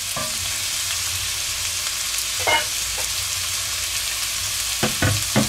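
Diced carrot, celery and onion sizzling in hot olive oil in an enamelled cast-iron pot, the vegetables being sweated at the start of a soffritto. A wooden spoon stirs them, knocking against the pot a few times, most loudly near the end.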